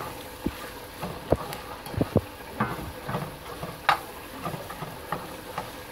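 A metal spatula scraping and knocking against a cast-iron skillet in irregular strokes as cream cheese is stirred into hot cooked sausage.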